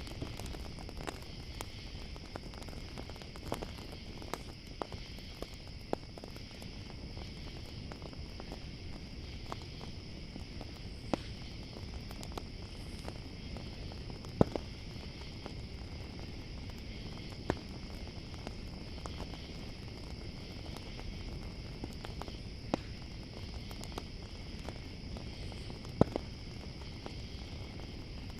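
Campfire crackling with scattered sharp pops, the loudest about halfway through and near the end, over a steady, continuous chorus of crickets.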